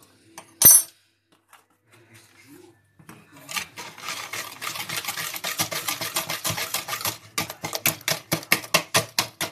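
Wire balloon whisk beating eggs and sugar by hand in a plastic bowl. A fast, steady rattle of the wires against the bowl starts about three seconds in and settles into separate strokes about four a second near the end. A single sharp metallic clink comes under a second in.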